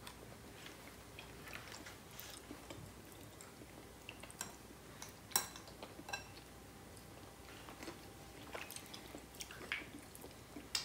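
Faint sounds of someone eating chilled crème caramel: soft chewing with scattered small clicks, one sharper click about halfway through.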